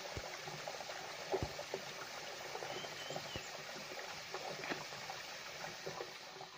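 Small waterfall trickling and splashing down rock ledges: a faint, steady wash of water with scattered drips and splashes.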